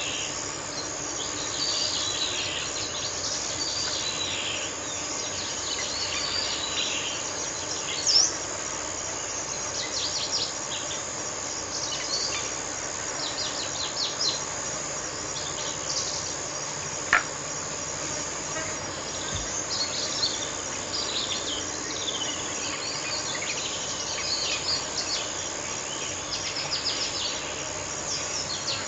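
Countryside nature ambience: a steady high insect chorus with many birds chirping and twittering over it throughout. There is one short, sharp, louder sound about 17 seconds in.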